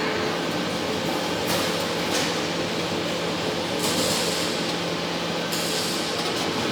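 Steady mechanical running noise: an even hiss over a low hum, with the upper hiss swelling and fading a few times.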